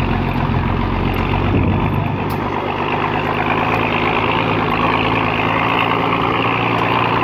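Mercedes-Benz Unimog's diesel engine running as the truck drives slowly over rough, wet meadow ground, heard from on top of the vehicle. The steady engine note shifts about two seconds in.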